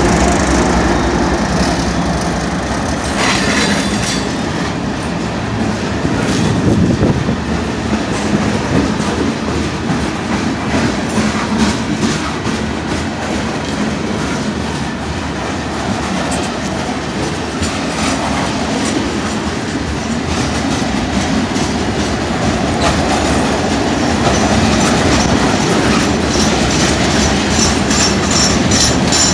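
Freight cars of a Florida East Coast manifest train rolling past, steel wheels clacking rhythmically over rail joints. A high wheel squeal comes in near the end.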